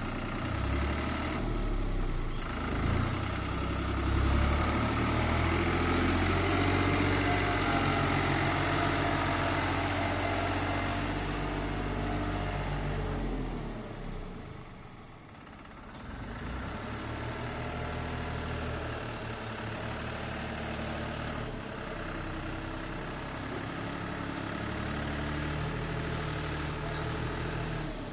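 Engine of a manure-loading machine running under work, its pitch rising and falling as it is worked; it drops away for a moment about halfway, then picks up again.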